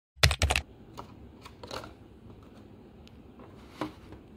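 Clear plastic clamshell food container being handled: a quick run of plastic clicks and crackles just after the start, then a few light taps and clicks, one sharper near the end.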